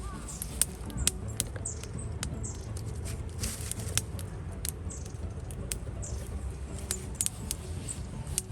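Wood campfire crackling: irregular sharp pops and snaps of burning wood over a low, steady rumble of the flames, with brief hisses.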